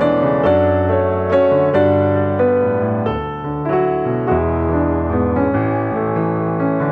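Piano music, single notes and chords struck one after another at an unhurried pace, each ringing on briefly.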